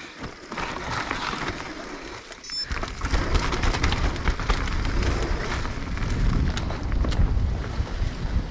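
Mountain bike riding down a leaf-covered dirt trail: tyres crackling over dry leaves and the bike rattling, with a low rumble of wind on the camera microphone from about three seconds in as the speed picks up.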